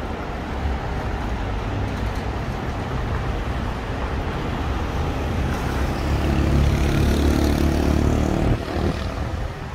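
Street traffic noise: a steady hum of cars. A nearby vehicle's engine swells and passes from about five and a half seconds in, then drops away suddenly near eight and a half seconds.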